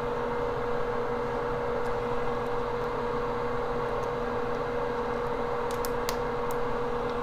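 Steady fan-like hum of workbench equipment with a constant whining tone, and a few faint light clicks about six seconds in.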